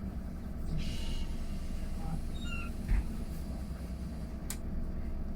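Mercedes-Benz eCitaro G full-electric articulated bus running with a steady low hum, a few faint short high tones a second or two in, a thump about three seconds in and a sharp click a moment later.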